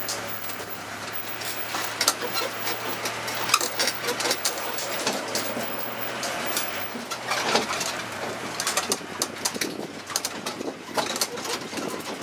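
A mini tourist road train moving off slowly, heard from its open carriage: a low engine hum under frequent clicks and rattles of the carriage. Birds call among them.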